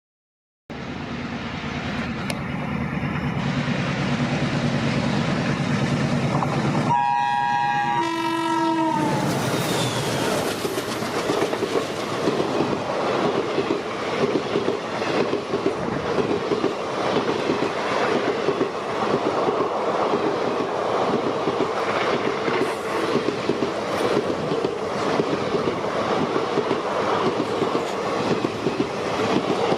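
A diesel locomotive's engine hums, and its horn sounds for about two seconds roughly seven seconds in. After that comes continuous clickety-clack of a train's wheels running over the rail joints.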